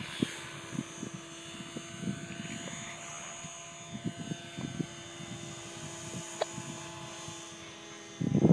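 Radio-controlled model aircraft flying overhead, its motor a steady, even drone at a distance, with soft low thumps scattered through it.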